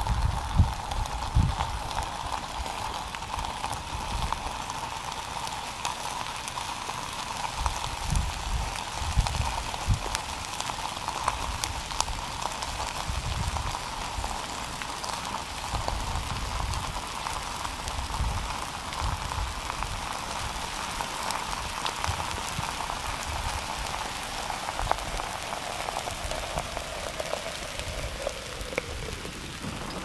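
Dense crackling and ticking from a creeping pahoehoe lava flow and its cooling crust as it engulfs a food can, with irregular low gusts of wind on the microphone. A steady high tone runs under it and slides lower near the end.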